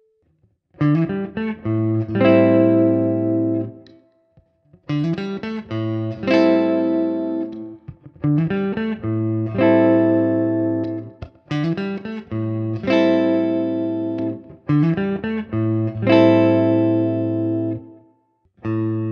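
Clean electric guitar played through the neck position of a CenterPunch humbucker. A short chordal phrase is repeated about five times with short pauses between. The pickup is coil-split, and is later switched quickly between full humbucker and split to compare the two sounds.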